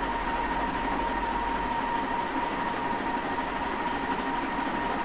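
Steady background noise: an even hiss with a constant high-pitched tone running through it, and a low hum that drops away about two seconds in.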